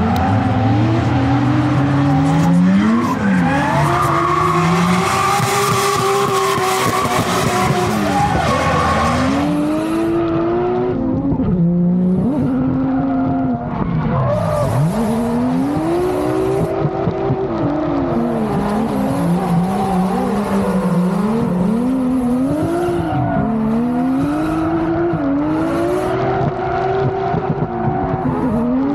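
Drift cars sliding with tyres squealing and engines revving. From about ten seconds in, one turbocharged drift car's engine rises and falls in pitch again and again as it is revved through a tandem drift, with bursts of tyre squeal.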